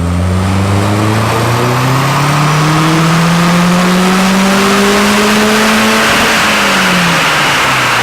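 Subaru Forester XT's turbocharged flat-four engine at full throttle on a dyno pull, its pitch climbing steadily for about six seconds, then falling as the throttle is let off.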